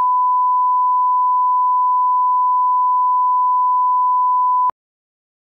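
Steady 1 kHz sine-wave line-up tone, the test tone that accompanies colour bars for calibrating video playback. It cuts off suddenly near the end.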